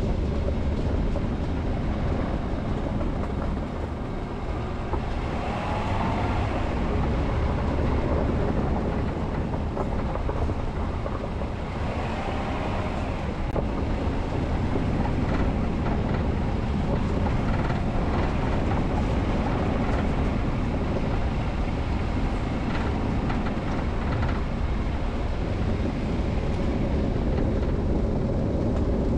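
Vehicle driving along an unpaved forest road: a steady low rumble of tyres and body noise with no gaps.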